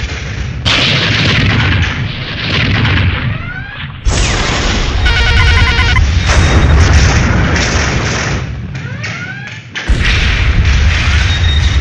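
Dubbed original Star Trek series sound effects of the ship being rocked by a meteorite shower: loud, continuous explosion-like rumbling that cuts off and restarts abruptly a few times. A short run of electronic beeping comes about five seconds in.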